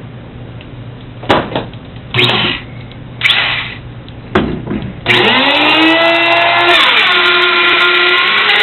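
A few knocks and short handling noises, then an electric router starts about five seconds in, spinning up to a loud, steady high-pitched whine whose pitch settles a little lower partway through.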